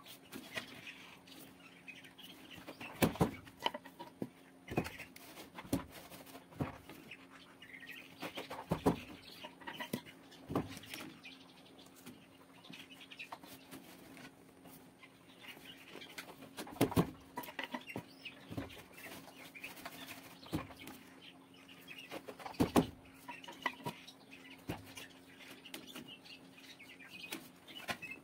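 Wooden knocks and clacks of a backstrap loom being worked: the beater sword strikes the weft home and the bamboo rods shift, at irregular moments a second or several seconds apart, over a faint steady hum.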